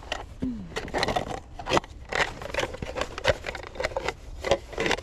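Irregular clicks, knocks and short scrapes of gear being handled at close range.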